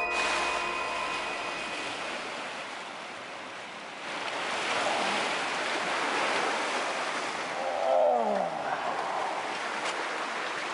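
Steady rush of surf and wind noise, with a short, loud roar falling steeply in pitch about eight seconds in.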